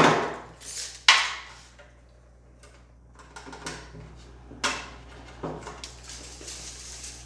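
Hand tools and a drywall board being handled during measuring and marking: a sharp knock about a second in, then scattered light clicks and taps, with two more knocks in the second half.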